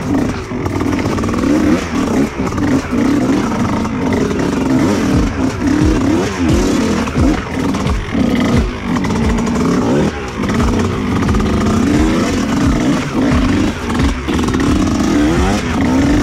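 Freshly rebuilt two-stroke Kawasaki Ninja engine on an off-road trail bike, revving up and down over and over under riding load. Short knocks and clatter run through it as the bike rides over rough ground.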